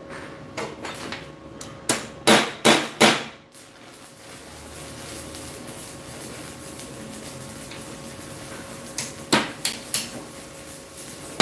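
Hammer blows on a bent metal ring clamped in a bench vise: four quick, loud strikes about two seconds in, then four lighter ones about nine seconds in.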